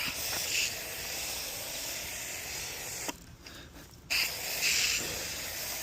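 Coil cleaner spraying onto an air-conditioner condenser coil: a steady hiss that stops for about a second near the middle, then starts again.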